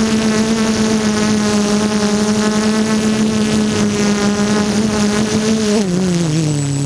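Brushless motors and propellers of an F330 quadcopter, heard from its onboard camera, giving a steady droning hum. Near the end the pitch slides down and settles lower as the throttle is cut and the quad comes down into the grass.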